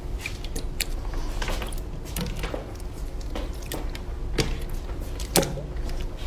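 Slime being squished and pressed, giving irregular sticky pops and clicks, with one louder pop about five seconds in, over a steady low hum.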